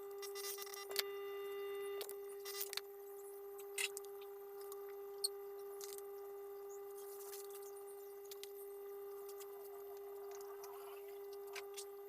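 A steady hum at one pitch, with a few sharp clicks and taps over it, most of them in the first few seconds.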